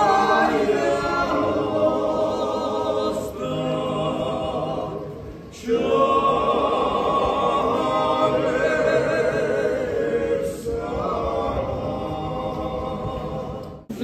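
A cappella vocal group singing several sustained notes in harmony, in long phrases with a short break about five seconds in.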